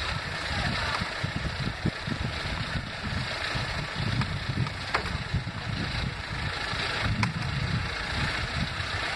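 Diesel engines of mobile hydra cranes running at idle, a steady low rumble, with two faint clicks about five and seven seconds in.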